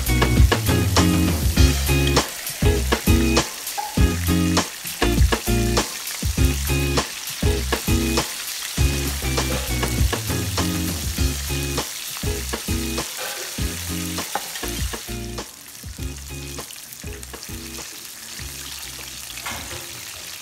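Breaded chicken wings deep-frying in hot oil in a pan: a steady sizzle full of crackles and pops. It quietens somewhat about three quarters of the way in, and tongs turn the pieces near the end.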